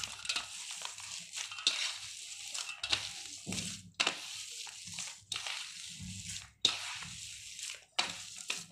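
Hands kneading mashed boiled potato in a steel platter, working in added salt. The strokes are irregular squishing and scraping, one or two a second.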